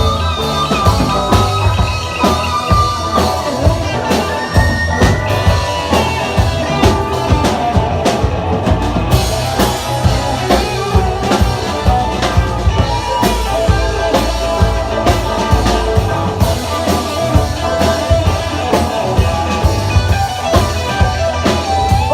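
Live rock band playing an instrumental passage in a psychedelic-rock style, with a steady drum kit beat and guitar.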